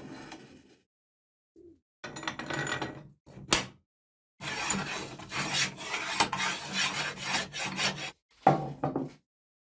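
Rasping, scraping noise in several short runs broken by dead silence, the longest run lasting about four seconds in the middle.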